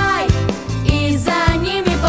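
Upbeat children's pop song: a steady drum beat, about two strokes a second, under a gliding melody line.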